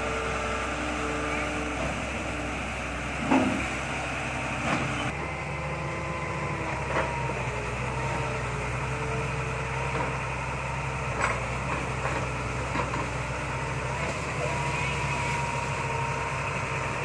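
Sumitomo long-reach excavator's diesel engine running steadily as the machine works, with a few short knocks, the loudest about three seconds in.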